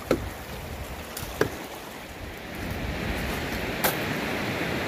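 Steady rushing noise of flowing water, growing a little louder about halfway through, with a few faint clicks.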